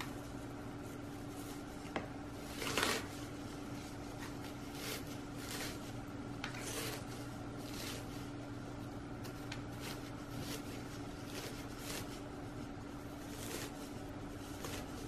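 Chunky orchid potting mix rustling and crunching in a terracotta pot as hands press it down around the plant, in scattered short strokes with the loudest a little under three seconds in, over a steady hum.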